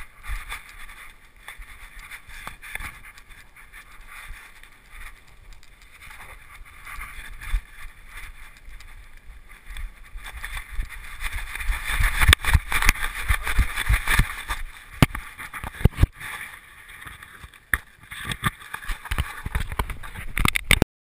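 Rustling, scraping and knocking of a GoPro camera strapped to a beagle as the dog moves and plays, the camera and its mount rubbing and bumping against the dog and what it touches. The knocks come thickest and loudest about halfway through.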